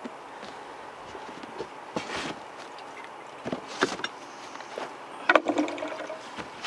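A cardboard box being handled and lifted off, with rustling and scraping cardboard, then a louder knock with a brief ring about five seconds in.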